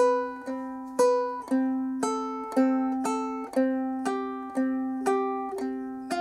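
Solo ukulele played fingerstyle, thumb and index alternating, about two plucked notes a second. A repeated open-string note alternates with a melody that moves across the higher strings, each note ringing on.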